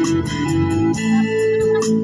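Music: held organ-like keyboard chords and melody notes over a steady ticking beat, with no singing.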